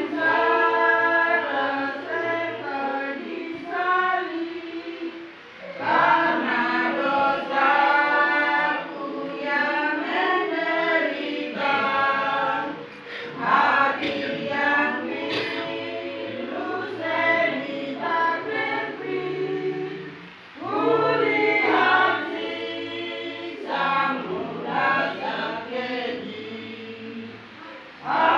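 Choir singing in phrases, with short breaths between them.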